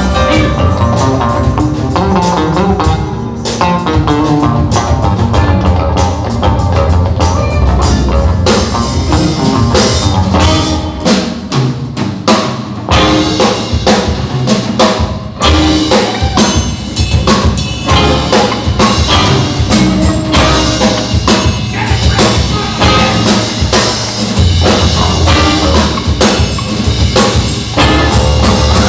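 Live rock band with horns playing loudly, the drum kit to the fore with a busy run of hits over bass and guitars.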